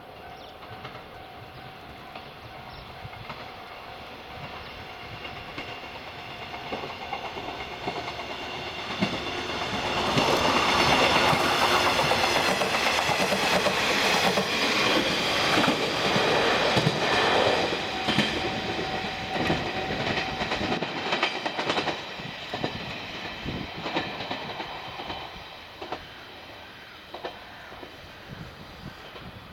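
Two-car JR Shikoku 1000 series diesel railcar set running through a station at speed without stopping. It grows louder as it approaches and is loudest for several seconds as the cars pass, with clacking over the rail joints. It then fades as it runs away.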